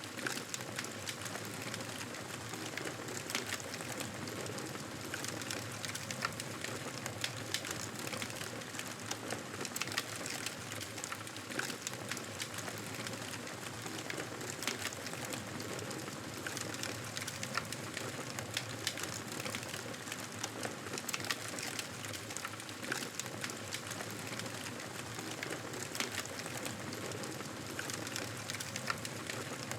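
Wood fire crackling in a fireplace: a steady hiss with frequent small, irregular pops and snaps.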